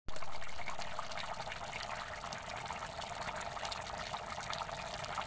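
A pot of taro and snails in coconut milk boiling, a dense, steady run of small bubbling pops.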